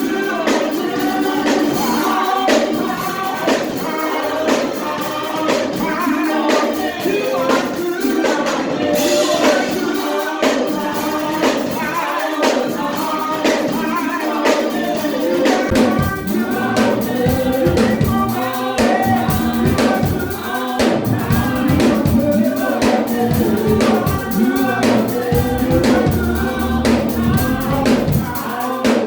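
Gospel choir singing a praise song with live band accompaniment and a steady beat; deep bass fills in about halfway through.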